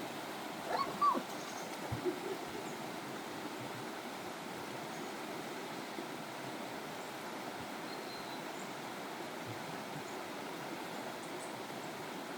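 Steady rush of flowing water, with a few short animal calls about a second in.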